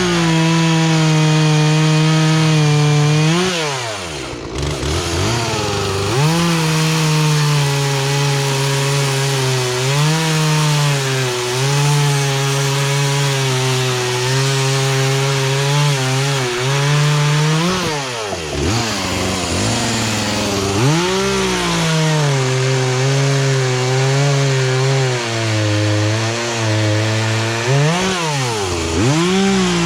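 Poulan Pro two-stroke chainsaw running at full throttle through small logs, holding its speed under the cut without stalling now that its carburetor has been adjusted. The engine drops toward idle and revs back up about four seconds in, again around eighteen and twenty-one seconds, and near the end.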